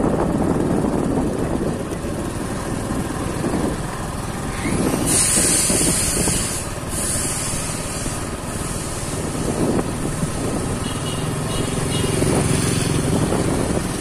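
Wind rumble on the microphone and road noise from riding a motorbike along a wet street, running steadily and loud. A brief louder hiss comes about five seconds in and fades by about seven.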